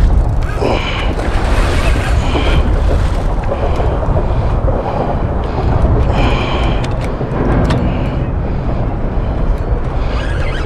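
Strong wind buffeting the microphone on an open boat, a steady low rumble with water noise.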